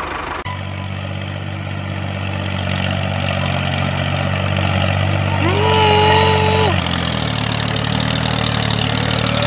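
Tractor engine running steadily with a low hum, its note shifting slightly about seven seconds in. A short cry in a high voice lasts about a second, a little past halfway.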